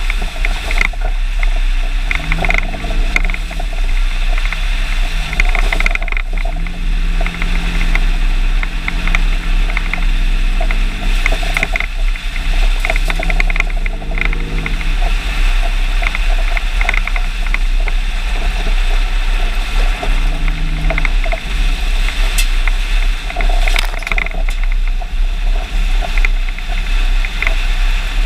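A truck under way, heard from beneath its chassis by the rear axle: steady road noise and a low hum, with the engine note rising and falling several times.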